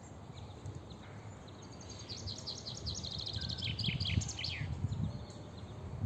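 A songbird sings one phrase of about two and a half seconds: a run of quick high notes that steps downward and ends in a lower flourish. A low rumble runs underneath.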